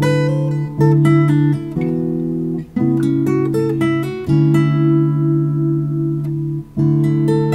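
Background music: acoustic guitar playing plucked and strummed chords that change about every second.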